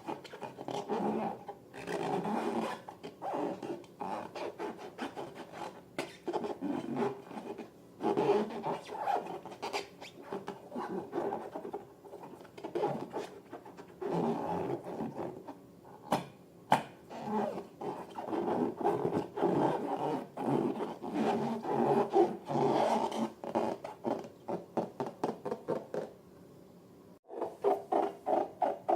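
Rubber balloons and slime being handled and squeezed, making a run of irregular rubbing and squishing noises. About 26 seconds in there is a brief pause, followed by a quicker series of short squeezes.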